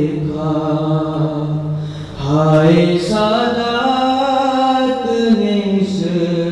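A young man's solo voice chanting a Shia mourning lament, unaccompanied, in long held notes that rise and fall in pitch. There is a short breath about two seconds in, then a higher phrase that slowly comes back down.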